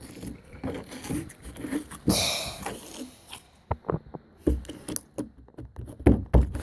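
Hands squishing and poking slime, making a string of short sticky pops and squelches, with a longer squelching burst about two seconds in.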